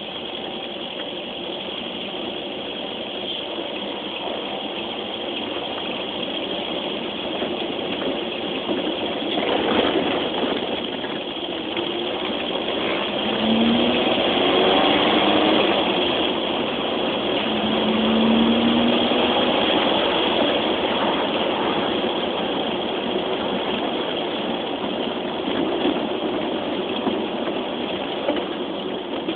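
Citroën DS four-cylinder engine running with road noise during a drive. It grows louder about halfway through as the engine note rises under acceleration, then settles back.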